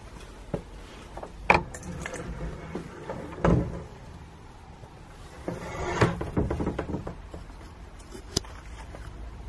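Handling noise from an old wooden door being pushed open: scattered knocks and creaks, a sharp knock about a second and a half in and a heavier thump at about three and a half seconds, and a rougher scraping stretch a little later.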